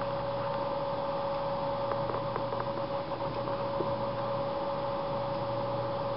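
Steady mechanical hum and hiss with a constant mid-pitched whine and a few faint ticks.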